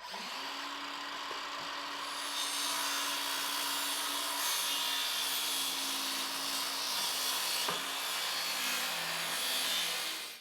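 Electric power tool running steadily on wood: a motor hum that spins up at the start and holds, under a steady hiss of the tool cutting or abrading the wood.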